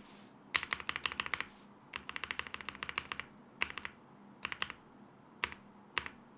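Luminkey65 mechanical keyboard being typed on: two quick runs of keystrokes, then a few short clusters and single key presses spaced out toward the end.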